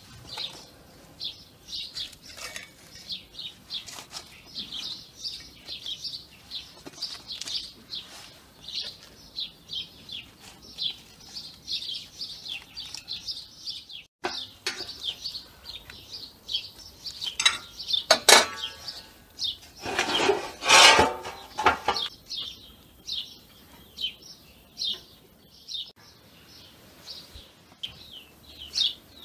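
Small birds chirping continuously in quick, high twitters. About two-thirds of the way through, a few louder knocks and a longer clattering noise stand out over them.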